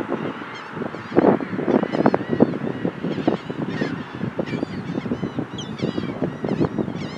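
A crowd of seagulls squawking over one another in a feeding frenzy, many short calls overlapping without a break.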